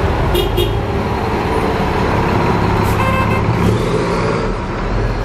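Diesel coach engine running close by amid street traffic, a steady low hum, with brief high-pitched sounds about half a second in and again around three seconds in.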